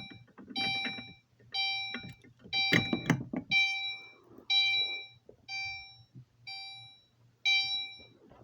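Fire alarm horn set to continuous chime, sounding a single ding about once a second, each starting sharply and fading away.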